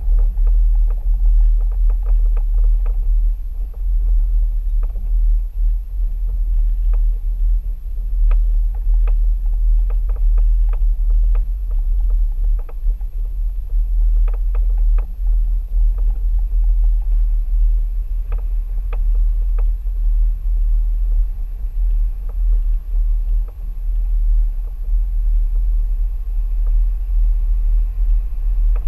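Mercedes-Benz ML350 BlueTec 4Matic driving along a gravel dirt track: a steady deep rumble, with scattered light clicks and knocks from gravel and the rough surface.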